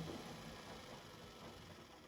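Beko WMD 46160 washing machine winding down: the motor and drum sound fades steadily toward silence as the machine comes to a stop.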